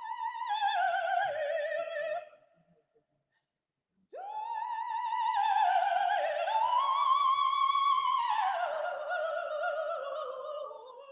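Operatic soprano voice singing with a wide vibrato: a short phrase that falls away, a pause of about two seconds, then a long phrase that climbs to a held high note before sinking again.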